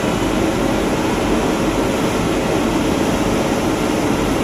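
WAP-7 electric locomotive standing with its cooling blowers running: a loud, steady rush of air with a low hum.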